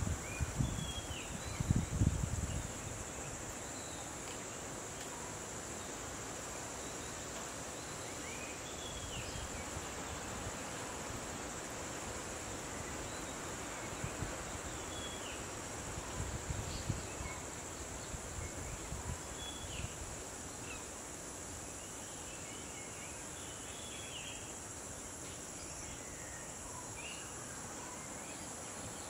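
Steady high-pitched chorus of crickets, with scattered short bird chirps over it. Low rumbling noise comes in the first two seconds and again around 16 to 20 seconds in.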